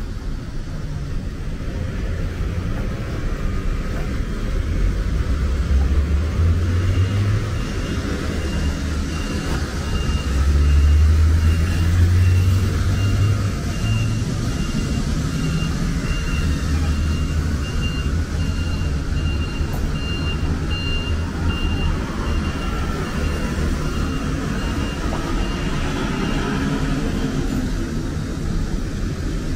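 Road traffic: motor vehicle engines running and passing, with two louder vehicles rising in engine pitch as they go by, one about a fifth of the way in and one near the middle. A high, steady pulsing beep sounds through most of the middle.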